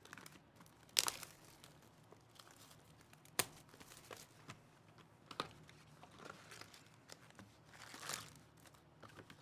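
Faint crinkling and tearing of the plastic and foil wrapping on a trading-card box and its packs, with a few sharp clicks along the way.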